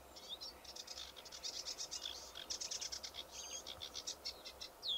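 Birds singing: fast, high trills and chirps that overlap one another, with a short swooping whistle near the end.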